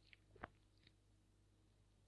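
Faint chewing of a mouthful of crisp apple: a few soft crunches, the clearest about half a second in.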